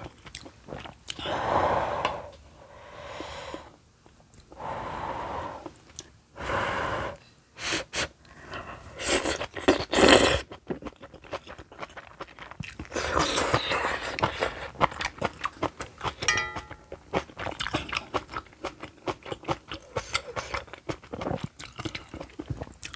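A person eating spicy kimchi stew with soft sujebi dough pieces, heard up close: several breathy slurps and blows over the hot food, the loudest about ten seconds in, then a long run of wet chewing and mouth clicks.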